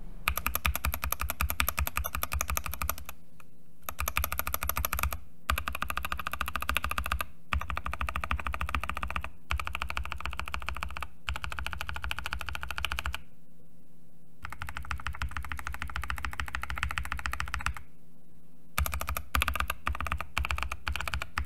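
Fast typing on C3 Kiwi tactile mechanical switches under SA profile keycaps, in a foam-modded Epomaker GK68XS hot-swap board. It comes in about eight bursts of a couple of seconds with brief pauses between them, and each burst is on a set of switches lubed and filmed differently, from stock and rattly to fully lubed with Deskeys or TX films.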